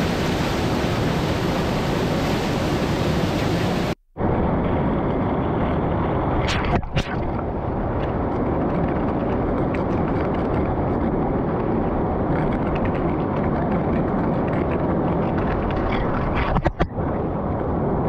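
Waterfall water pounding and splashing right onto the microphone, a loud steady rush. About four seconds in it cuts out for a moment and comes back duller, with a few sharp knocks of water or bumps against the camera.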